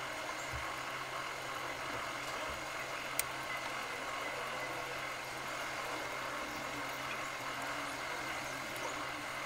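Steady background hum with hiss, and a single faint click about three seconds in.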